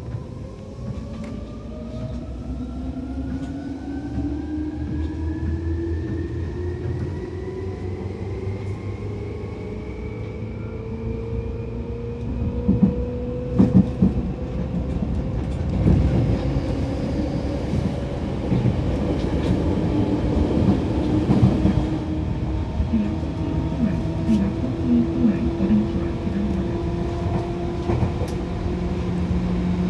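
Seibu 2000 series electric train under way. The traction-motor and gear whine rises steadily in pitch for the first dozen seconds or so as the train picks up speed, then levels off. Wheels clatter and knock over the rails from about halfway through.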